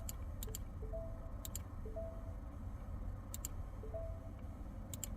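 Computer mouse clicks, mostly in quick pairs, every second or two, with short two-note electronic beeps, a lower note then a higher one, recurring alongside them over a steady low hum.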